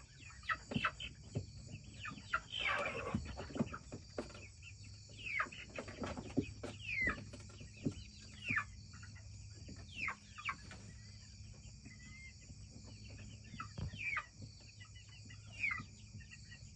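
Young chickens giving short clucks and chirps that fall in pitch, scattered throughout, as they settle onto the roost for the night. Insects trill steadily behind them.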